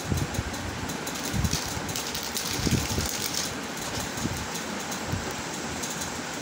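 Pen scratching on notebook paper while drawing, loudest for about two seconds in the first half, over a steady rushing background noise, with a few soft low thumps.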